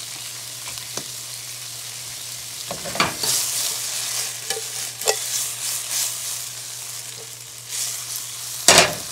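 Chicken pieces and salsa sizzling in olive oil in a nonstick frying pan. The sizzle swells each time the pan is shaken and tossed, and there is a sharp loud knock near the end.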